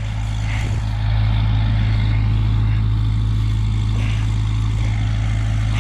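Tractor engine running steadily with a constant low drone.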